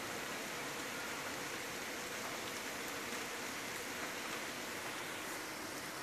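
Rain falling steadily during a thunderstorm, an even hiss with no thunder claps.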